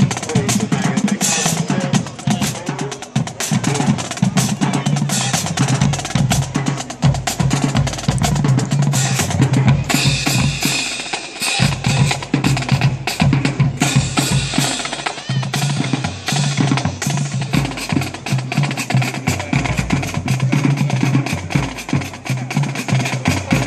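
Marching band drumline playing a fast cadence of snare rolls and bass drum hits, with low held notes sounding underneath in stretches.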